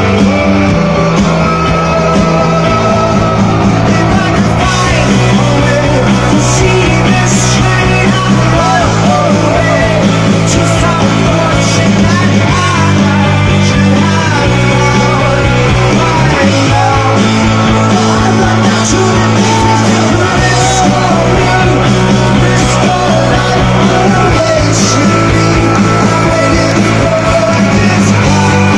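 Rock band playing live and loud: a singer over drums, guitars and bass, with the bass line stepping between notes every few seconds and cymbal crashes throughout.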